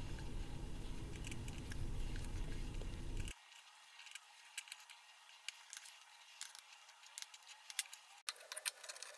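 Light metallic clinks and rattles of spiral steel drill shavings being handled and pressed into a steel canister, scattered small ticks throughout. A low steady rumble sits under the first three seconds and cuts off suddenly.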